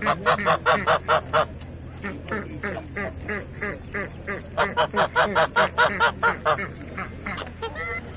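Domestic waterfowl calling in rapid runs of short, harsh honking calls, about five a second: one run at the start and another about halfway through, with scattered calls between.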